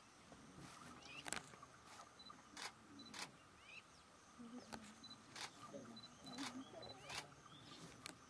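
Camera shutters clicking irregularly, about a dozen sharp clicks, over a quiet savanna background with faint bird chirps.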